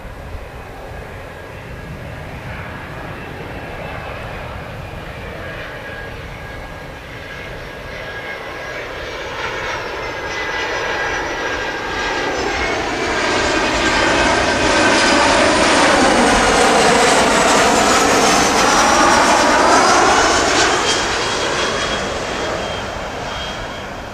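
Boeing 737-400's twin CFM56-3 turbofan engines on landing approach, flying past: a jet rush and whine that grows louder from about a third of the way in, is loudest for several seconds past the middle, then fades near the end. The whining tones slide in pitch as the plane goes by.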